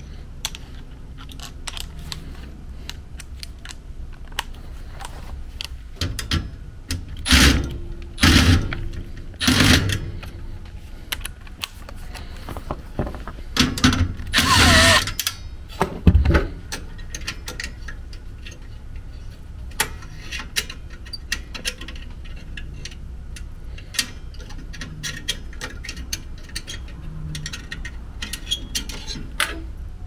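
Cordless drill/driver whirring in a few short bursts, then a longer run, backing out the screw that holds a gas furnace's flame sensor. Light clicks and clatter of tools and sheet-metal parts being handled, over a low steady hum.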